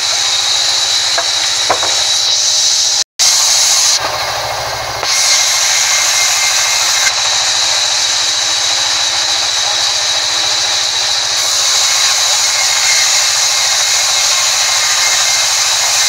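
Sawmill band saw running and ripping through a timber plank: a steady, loud hiss with a high whine. The sound cuts out for an instant about three seconds in.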